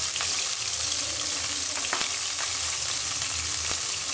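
Hot ghee sizzling and bubbling in a nonstick frying pan: a steady sizzle with a few sharp pops.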